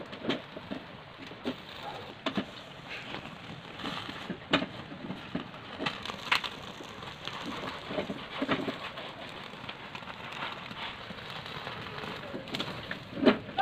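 Plucked chicken singed over a gas stove burner: the flame hisses steadily while the skin and leftover feathers crackle and pop irregularly as they scorch.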